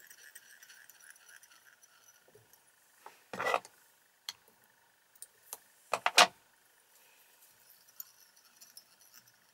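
Small metal fly-tying tools handled at the vise while thread is wound onto the hook: scattered light clicks, with a short rattling clatter about three and a half seconds in and a louder one about six seconds in.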